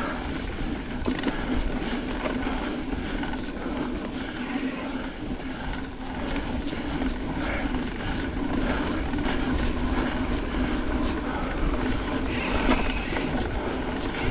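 Mountain bike ridden along a dirt trail: a steady tyre rumble with frequent rattles and knocks from the bike over the bumps.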